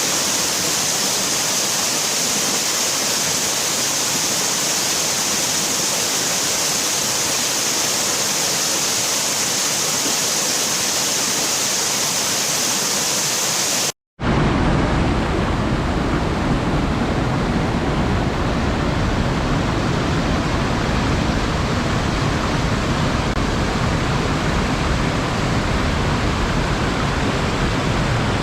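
Steady rush of running, falling water from a river waterfall, bright and hissy. About halfway through it cuts out for an instant and comes back deeper and fuller, with less hiss.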